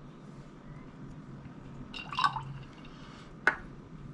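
A shot of liquor poured from a small shot glass into a glass jar of ice, a brief splash about two seconds in, then a single sharp knock as the small glass is set down on the counter.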